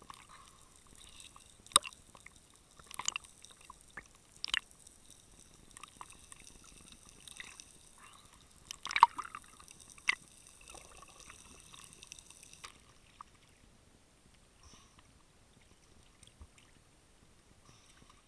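Water sloshing and dripping around an underwater camera housing at the sea surface, with scattered sharp knocks and clicks from handling the speared fish and gear. The faint hiss under it stops about two-thirds of the way through, and it goes nearly quiet.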